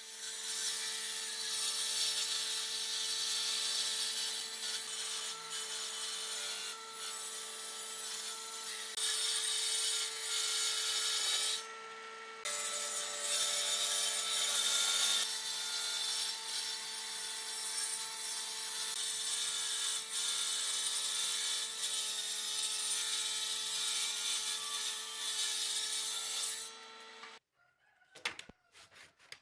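Woodworking power saw running with a steady hum and cutting hardwood, the cutting noise swelling and easing as boards are fed. It drops out briefly about twelve seconds in and stops near the end, followed by a few light knocks of wood being handled.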